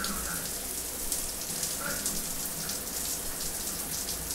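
Shower running: a steady hiss of spray, with water splashing on a man's head and shoulders.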